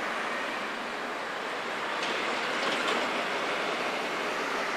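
Steady rushing noise of an Alstom Citadis tram rolling away along its track, mixed with passing road traffic, a little louder about two to three seconds in.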